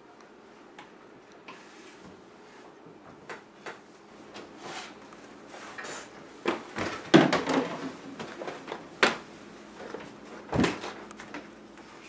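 A scattered run of knocks, bumps and clatters, like cupboard doors and objects being handled, busiest and loudest in the second half with sharp knocks about seven, nine and ten and a half seconds in, over a faint steady hum.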